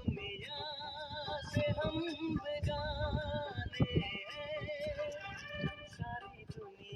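Background music: a song with a wavering, heavily processed vocal melody over a steady beat.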